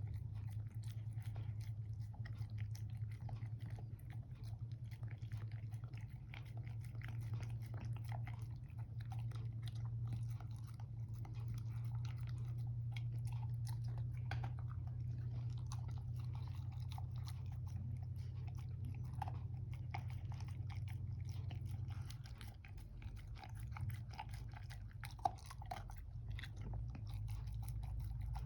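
Dog chewing and crunching its food, a run of small irregular crunches, over a steady low hum in the background that drops away about three quarters of the way through.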